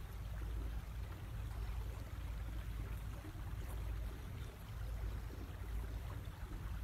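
Water washing along the hull of an aluminium sailing yacht under way on near-silent electric motors, with a low, uneven rumble underneath.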